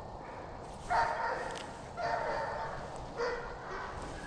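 Deer-hunting hounds baying on a chase: three long bawls about a second apart.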